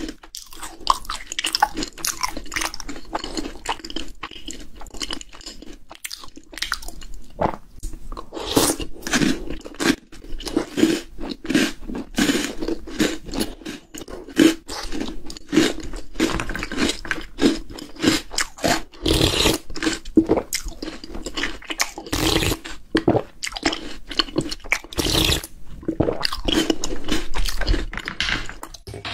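Close-up chewing of Maltesers, the malted-milk chocolate balls, a dense run of crisp crunches throughout with a few louder bites.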